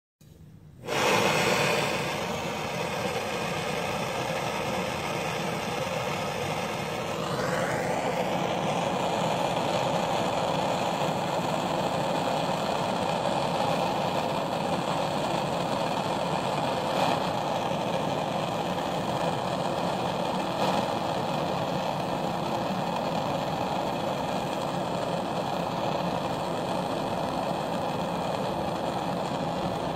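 Handheld gas torch burning with a steady hiss, starting suddenly about a second in, as it heats lead in a small makeshift crucible to melt it for casting. A brief rising whistle comes about seven seconds in.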